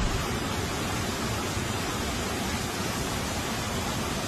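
Floodwater rushing: a steady, even rushing noise with no breaks.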